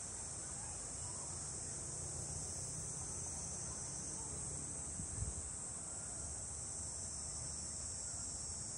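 Steady high-pitched chorus of insects, unbroken. A single low thump about five seconds in.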